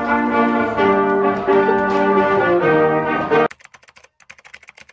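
Brass-led band music, with trumpets and trombones playing held chords that change every half second or so. It cuts off suddenly about three and a half seconds in, leaving only faint, rapid clicking.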